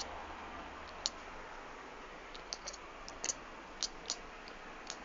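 Kitten making its squirrel-like noise: short, sharp, high clicks, about seven of them at irregular spacing, some in quick pairs.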